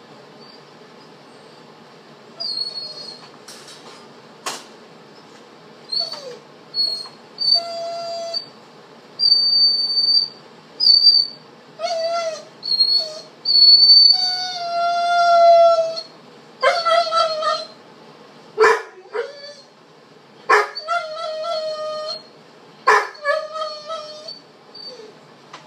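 A dog whining and howling in a long series of cries: thin high whines, then drawn-out howls, then sharper yelps.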